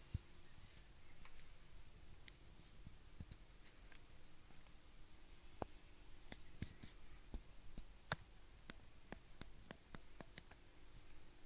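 A sleeping tomcat snoring faintly, with soft breaths and many small irregular clicks.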